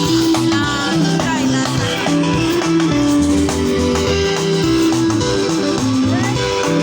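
Band music with plucked guitar lines running over a bass line and drums.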